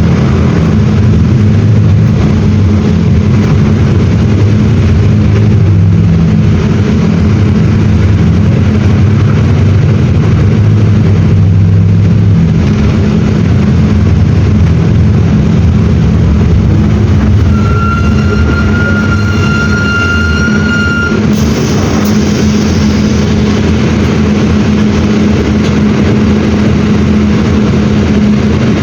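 Mercedes-Benz OM-924 LA four-cylinder inline diesel engine of an OF-1721 BlueTec 6 bus running steadily. A steady high-pitched tone sounds for about three seconds a little past the middle.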